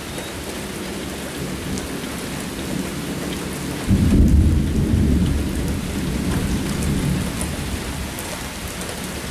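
Steady rain falling, then about four seconds in a loud thunderclap breaks in and rumbles low for several seconds before fading.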